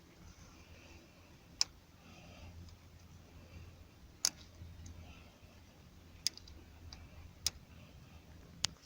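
Metal manicure cuticle tool picking at a broken aux plug tip lodged in a car's aux jack: five sharp clicks a second or two apart, over a faint low hum.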